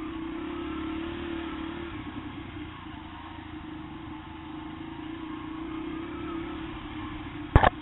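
Yamaha TT-R125's single-cylinder four-stroke engine running at a steady part throttle as the bike rides the trail. One sharp, loud knock near the end.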